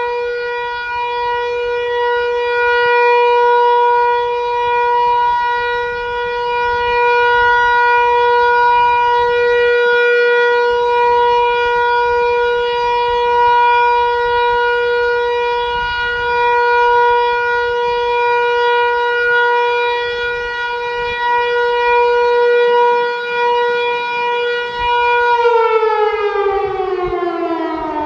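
Hörmann HLS 273 electromechanical civil-defence siren sounding a steady, unwavering tone: the German all-clear (Entwarnung) signal. About three seconds before the end the rotor starts to run down and the pitch falls steadily.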